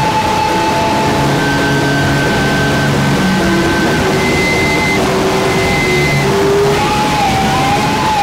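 Noise rock: a loud, dense wall of distorted electric guitar noise with several long held tones sounding over it.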